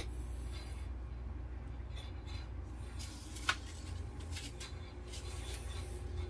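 Steady low electrical and machinery hum of a ship's switchboard room, with light handling rustles and a single sharp click about three and a half seconds in.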